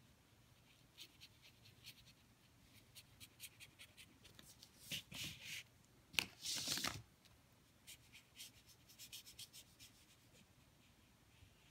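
Faint scratching and light ticking of a water brush's bristles working wash onto watercolour paper. Two louder rustles come a little past halfway.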